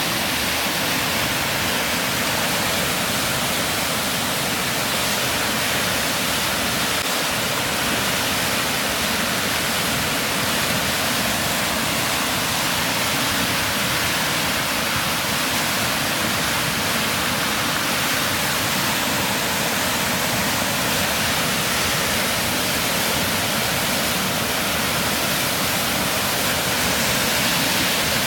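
A creek in flood, its fast high water rushing with a steady, unbroken noise.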